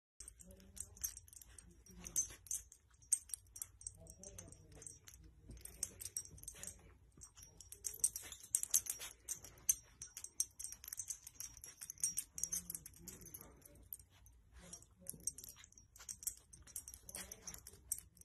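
Puppies moving about: a busy run of light scratchy clicks and rustles, with a few short, faint animal sounds.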